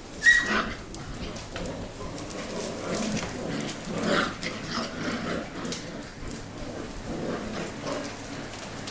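Six-week-old mini goldendoodle puppies wrestling together, with one sharp yip about a third of a second in, then scuffling and small puppy whimpers.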